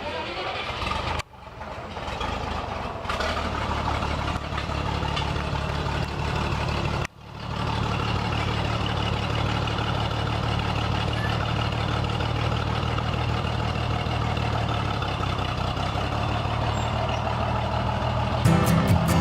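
Oliver 77 antique tractor engine running steadily. The sound drops out briefly twice, and music comes in near the end.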